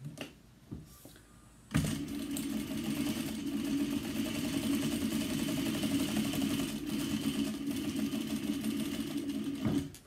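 Sewing machine running at a steady speed, top-stitching through a folded drill-fabric strap. It starts about two seconds in and stops just before the end.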